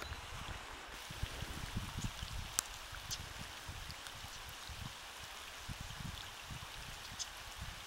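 Light rain falling on a pond's surface: an even hiss with scattered ticks of individual drops, over irregular low rumbles at the microphone.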